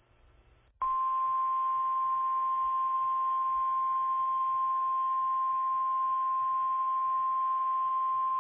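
NOAA Weather Radio 1050 Hz warning alarm tone, heard through a radio receiver with hiss. It is a single steady high tone that starts abruptly about a second in. It signals that an urgent weather warning is about to be read.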